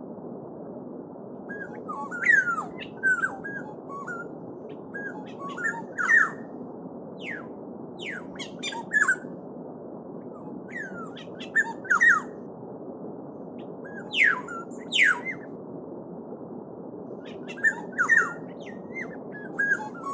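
Songbirds calling in short bursts of quick, falling whistled notes, repeated every few seconds. Under them runs the steady murmur of a babbling stream.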